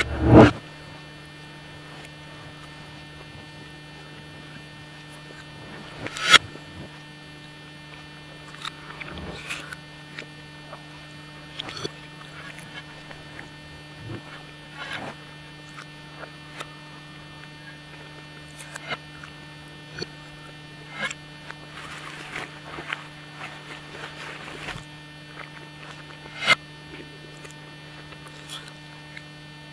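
Scattered clinks and scrapes of a fork and knife on a plate of spaghetti, played backwards, over a steady electrical hum. The loudest clinks come at the very start, about six seconds in, and near the end.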